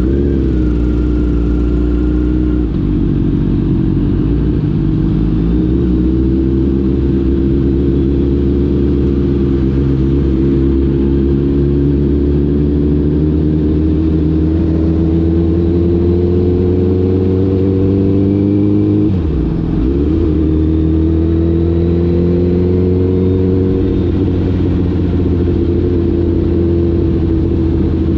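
Honda CBR1000RR inline-four with an Arrow exhaust, heard from the rider's seat, running at steady riding revs that climb slowly. There is a brief drop in revs about nineteen seconds in, then the revs climb again and ease off near the end.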